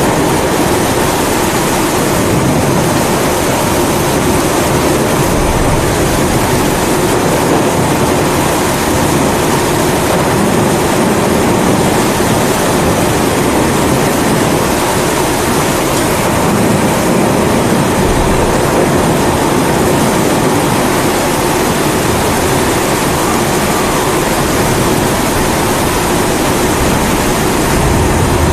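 Pressurised kerosene stove burner (Primus-type) burning with a steady rushing hiss, mixed with falling rain.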